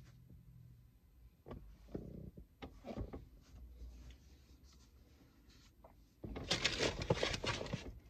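Rustling and handling noise with a few light knocks, then a louder, dense crinkly rustle lasting about two seconds, from about six seconds in.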